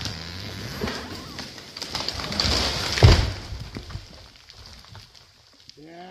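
A grand fir falling: crackling of wood and branches, a rising rush as the crown sweeps through the snow-laden neighbouring trees, and one heavy thud as the trunk hits the ground about three seconds in, followed by a fading hiss of snow and debris coming down. A short voiced call comes right at the end.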